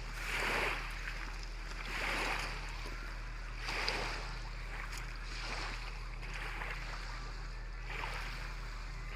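Small waves lapping at the shore, washing in again every second and a half to two seconds, over a steady low hum.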